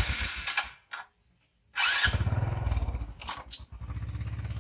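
Small motor scooter engine being started: a short burst at first, then the engine catches about two seconds in and runs on with a fast, even putter.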